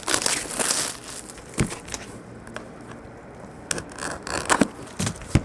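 Plastic wrapping on a trading-card box being torn open and crinkled, in a rustling burst at the start and then scattered crackles and clicks, busier again near the end.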